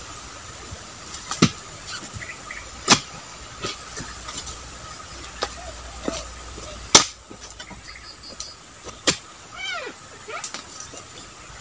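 Sharp chopping strikes of a long-handled blade at the base of an oil palm, about seven blows a second or two apart, over a steady insect buzz.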